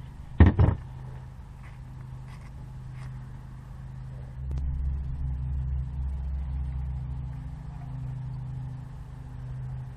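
Low, steady engine hum of a vehicle in the background, joined by a deeper rumble from about four and a half to eight seconds in. A single sharp knock about half a second in.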